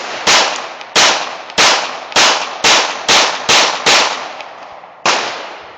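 Semi-automatic pistol firing a rapid string of about eight shots, coming faster as it goes, then a short pause and one more shot; each report rings out and fades.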